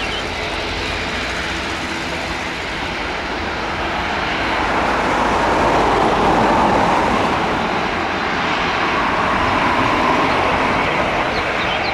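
Jet airliner's engines passing, a steady rush of engine noise that swells to its loudest about six seconds in and then eases slightly.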